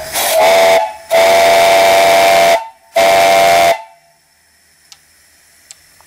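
Brass steam whistle on a homemade vertical boiler blown in four blasts: two short toots, a long blast of about a second and a half, and a shorter last one. Each is a loud, steady shrill tone over hissing steam, and the whistling stops about four seconds in.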